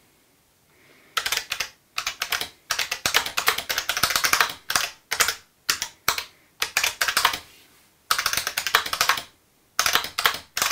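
Fast typing on an IBM Model F buckling-spring keyboard, each keystroke a sharp, loud click. The typing starts about a second in and comes in quick flurries with short pauses between them.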